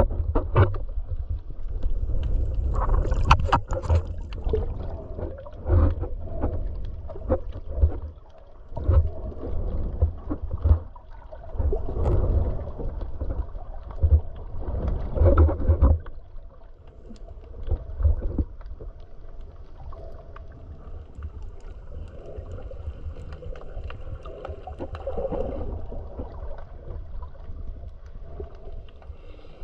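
Muffled underwater water noise picked up by a submerged camera: a low rumble and sloshing with frequent knocks and taps, growing quieter and steadier about halfway through.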